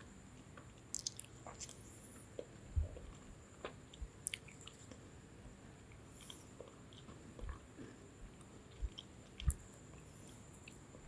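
Lemon sandwich biscuits being bitten and chewed close to the microphone: irregular crisp crunches and crackles, with a few soft low thuds.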